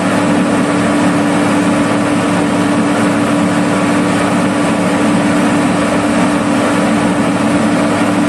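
Gomaco GT-6300 slipform paver's diesel engine running steadily, with a constant droning tone.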